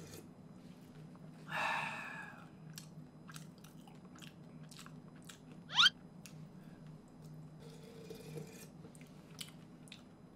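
Mala tang broth being tasted from a plastic spoon: a slurp about a second and a half in, then small wet lip smacks and mouth clicks while tasting. About six seconds in comes a short, sharp rising squeak, the loudest sound.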